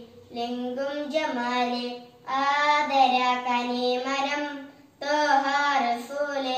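A boy singing a devotional song solo and unaccompanied, in three long, held phrases with short breaks for breath between them.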